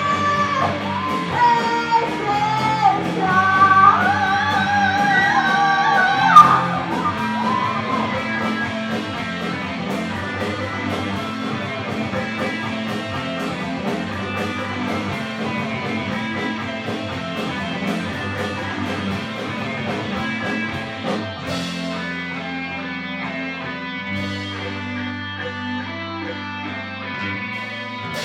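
A live rock band playing a song, led by electric guitar over bass and drums. For about the first six seconds a lead line bends and wavers in pitch, then the full band carries on.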